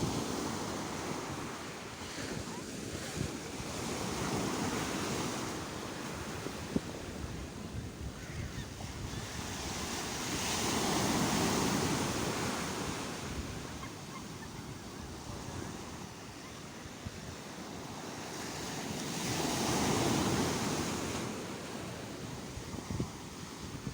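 Sea waves washing in, a steady rushing surf that swells to a louder surge every several seconds, loudest about eleven and twenty seconds in.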